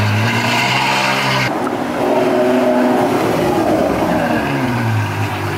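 Ferrari F12's 6.3-litre V12 with its Onyx F2X exhaust idling with a steady low note. About a second and a half in, the engine note rises and falls once as the car pulls away, then settles back to idle.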